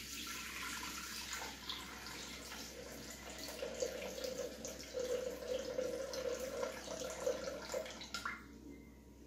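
Water poured in a steady stream from a glass measuring jug into a Thermomix's stainless-steel mixing bowl, with a steady note joining in about halfway as the bowl fills; the pouring stops shortly before the end.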